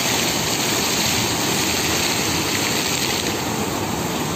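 Fountain water jets gushing and splashing back into the basin: a steady rush of water that turns a little softer about three seconds in.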